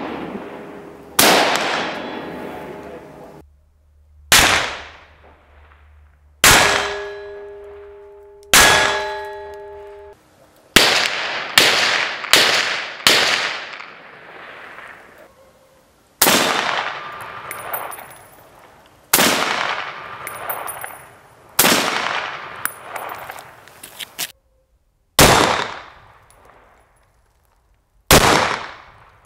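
Zastava M59/66 semi-automatic rifle (7.62×39 mm) firing about fourteen shots at steel targets. Each shot is a sharp crack followed by a decaying ring of struck metal, and a quick string of shots comes in the middle.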